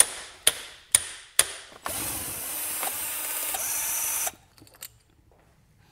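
A hammer strikes the handle of a screwdriver set in a carburettor screw four times, about half a second apart, to break the screw loose. Then a cordless drill-driver runs for a little over two seconds on the carb bank and stops abruptly.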